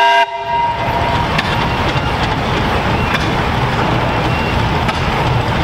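A steam whistle with several tones sounding together cuts off just after the start. Then comes a steady low rumble and hiss from a steam traction engine running as it moves along the track.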